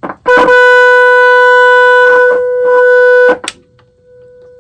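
Antique tube radio's loudspeaker sounding a steady, buzzy test tone from a signal generator fed in for IF alignment. The tone is loud for about three seconds with a few clicks, then cuts off suddenly and comes back faintly near the end.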